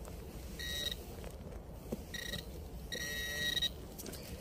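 Metal detector giving its target tone three times: two short beeps, then a longer one, all at the same steady pitch. It is signalling buried metal, which the detectorist places under a tree root.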